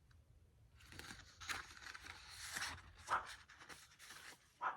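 Pages of an album photobook being handled and turned: paper rustling, with a few sharper crinkles along the way.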